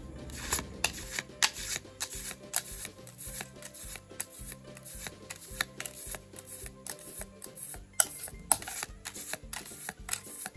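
Background music with a steady beat of short sharp clicks and held low notes that change in steps.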